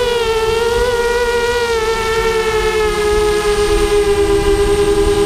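The brushless motors and 5-inch propellers of a 250-size FPV racing quadcopter whining in flight, picked up by its onboard GoPro. The whine is steady and high, dips slightly in pitch at first and then sinks slowly, with a rumble of air noise underneath.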